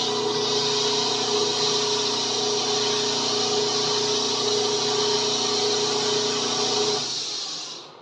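Lathe running with a wooden pool cue butt spinning in it, and sandpaper held by hand against the turning wood giving a steady hiss over the motor's hum. Both stop about seven seconds in, the hiss fading out within the next second.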